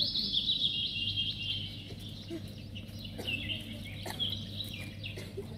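Small birds chirping in rapid, overlapping high-pitched twitters, thick at first, thinning out in the middle, then picking up again near the end.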